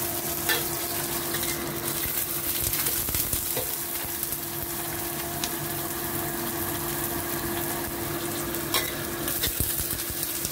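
Chopped red chillies, shallots and garlic sizzling in hot oil in a metal wok while a metal spatula stirs and scrapes them, with a few sharp clinks of the spatula against the pan, about half a second in and twice near the end.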